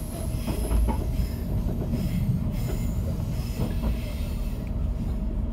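Diesel railcar running along the line, a steady low rumble of engine and wheels on track. A thin high-pitched squeal sounds through the first half.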